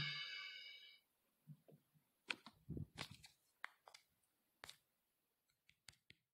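The cumbia song's last held chord dies away within the first second, leaving near silence broken by a few faint, scattered clicks and taps.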